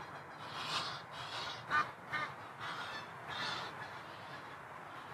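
Waterfowl on the lake giving a string of short calls over the first four seconds or so, which then stop.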